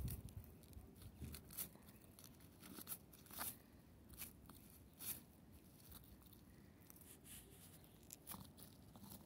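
Faint, scattered crackles of dry grass and dead leaves being brushed and pressed as a toy wolf figurine is pushed through them by hand.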